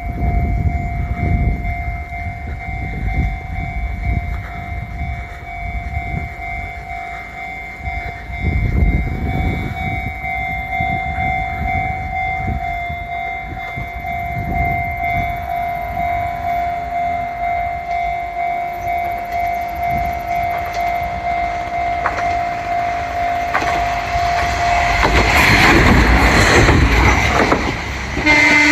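A level-crossing warning bell rings steadily as a single-car Kominato Railway KiHa 200-series diesel railcar (car KiHa 213) approaches and grows louder. The railcar passes over the crossing loudly near the end.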